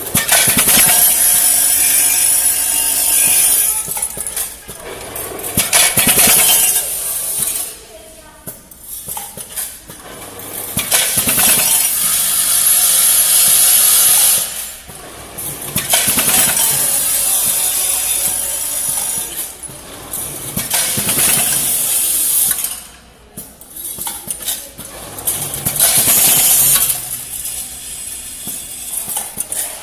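Screw-packaging machine running: a loud jangling clatter of metal screws with mechanical noise, broken by short lulls roughly every seven seconds.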